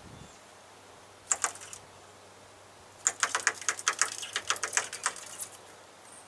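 A small bird's beak pecking at the grille of a Dodge pickup truck, attacking its own reflection: a few sharp taps about a second in, then a rapid run of taps for about two and a half seconds.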